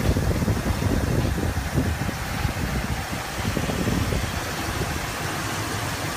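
Freshly rebuilt Ford 390 V8 of a 1967 Ford Galaxie 500 idling, with a low, pulsing beat, a little louder for the first couple of seconds.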